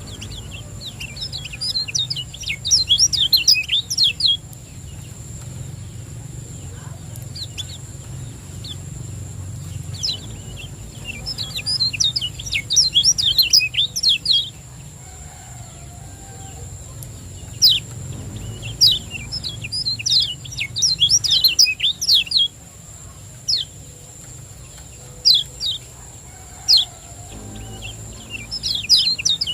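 Kecial kuning (lemon-bellied white-eye) giving its 'ciak' chatter: rapid runs of sharp, high, downward-sweeping chirps lasting a few seconds each, three times, with single chirps between. A steady faint high hiss and a low hum lie underneath.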